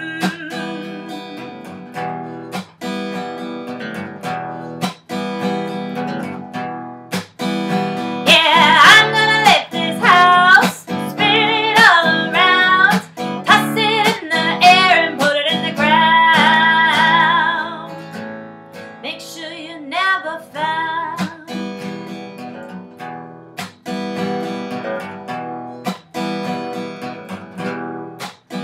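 Acoustic guitar strummed hard in a driving rhythm, with sharp percussive strokes. About eight seconds in a woman's voice joins, singing a loud, wavering line for about ten seconds, then the guitar carries on alone.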